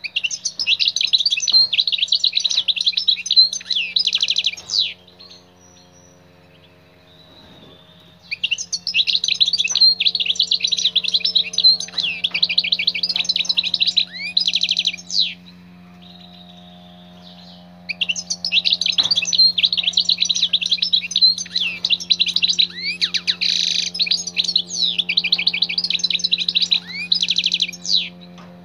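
European goldfinch singing in three long bouts of rapid, high, twittering notes and trills, with pauses of a few seconds between bouts. A steady low hum runs underneath.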